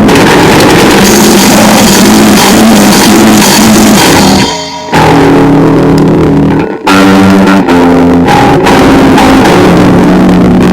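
Primitive noisegrind played loud by a band: heavily distorted guitar, bass and drums. It stops short twice around the middle, then ends on a held, ringing chord.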